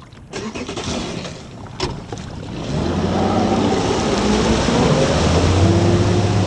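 Bass boat's outboard motor running the boat at speed, with wind and water rushing past. About three seconds in the engine note comes up loud and steady, its pitch creeping slightly upward.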